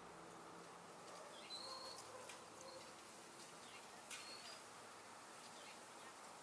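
Quiet outdoor ambience: a faint steady hiss of wind with a few short, high bird chirps and ticks, about one and a half to two seconds in and again around four seconds. A low distant hum fades out in the first two seconds.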